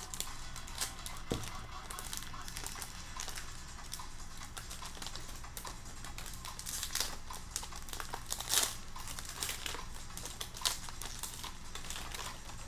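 Wrapper of a 2022 Topps Opening Day baseball card pack crinkling as it is handled and torn open by hand, with a couple of sharper crackles about two-thirds of the way through.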